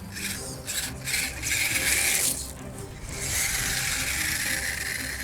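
Temper 4WD Gen 2 RC rock crawler's small electric motor and gearbox whirring in bursts as the throttle is worked. There are two short bursts, then a longer run from about three seconds in.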